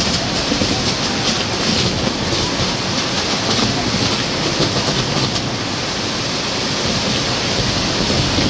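Ground fireworks: rows of spinning fireworks wheels on tall poles burning together with a loud, steady hissing rush of sparks and a fine crackle.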